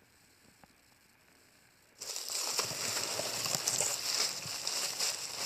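Quiet for about two seconds, then packaging being unwrapped by hand: a continuous, irregular crinkling and rustling of wrapping material.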